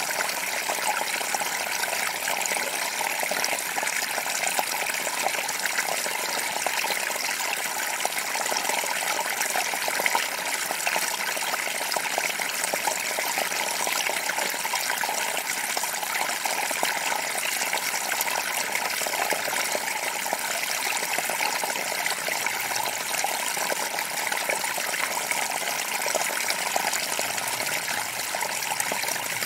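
Small creek running: a steady, even rush of flowing water dotted with many small splashes.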